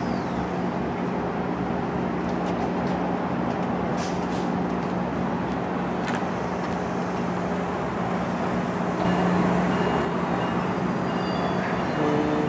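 Steady running hum and rush of a GO Transit commuter train of Bombardier BiLevel coaches standing at the platform, with a few faint clicks.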